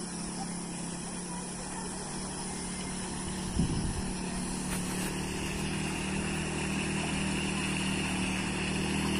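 Motorcycle engine running at a steady pitch, slowly growing louder as it approaches. A single thump comes about three and a half seconds in.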